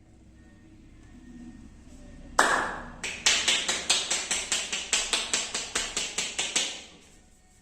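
Sharp hand slaps: one loud slap a little over two seconds in, then a quick, even run of about twenty slaps, roughly five a second, stopping suddenly near the end.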